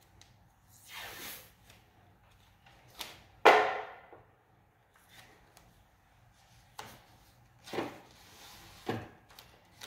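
Handling noises from hands working at the wiring behind a split air conditioner's indoor unit: scattered rustles and knocks, the loudest a sharp clack about three and a half seconds in that dies away quickly.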